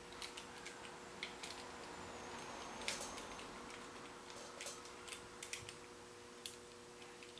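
Faint, irregular light clicks and ticks of a small steel bolt and tools being handled on a workbench, over a steady low hum.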